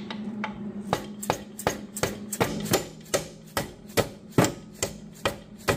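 A rubber mallet knocking on a steel bolt used as a punch, driving the lower shock-mount pin out of a 1987 Yamaha TW200's rear suspension: a steady run of sharp blows, about two or three a second.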